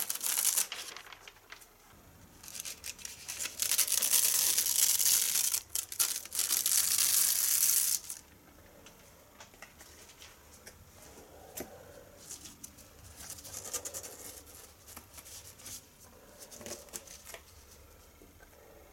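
A stencil sheet being peeled off a spray-painted board, a loud ripping noise lasting several seconds that stops abruptly about eight seconds in. Faint rustles follow as the sheet and board are handled.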